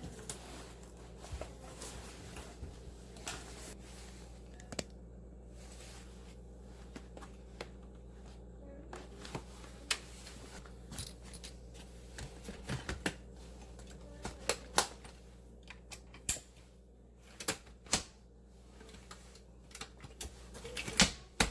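Scattered clicks and knocks of tools and parts being handled during a garbage disposal installation, coming more often in the second half with the sharpest knocks near the end.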